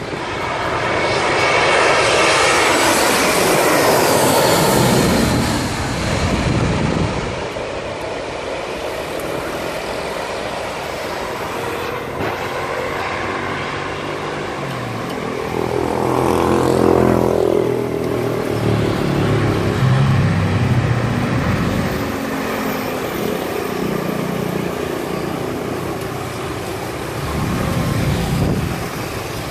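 Jet airliner passing low overhead on final approach. Its engine noise swells over the first few seconds and falls in pitch as it goes by, followed by the steady hum of a road vehicle's engine.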